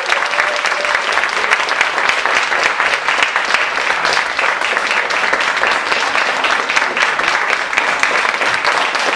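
Theatre audience applauding steadily at the end of a live solo comedy performance.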